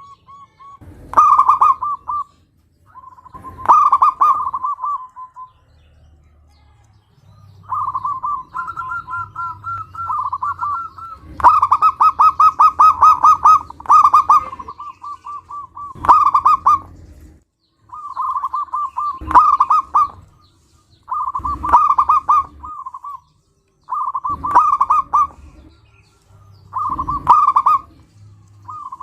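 Zebra dove (perkutut) singing its rapid, stuttering coo, repeated in phrases of about a second every two to three seconds, with one longer pause early on.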